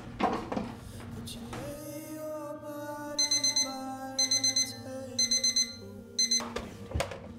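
Digital alarm clock beeping in quick groups of four, about one group a second, over soft background music. It is silenced partway through a group, about six and a half seconds in.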